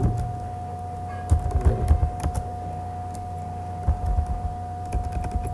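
Computer keyboard being typed: two short runs of key clicks, about a second in and again near the end. A steady electrical hum runs underneath.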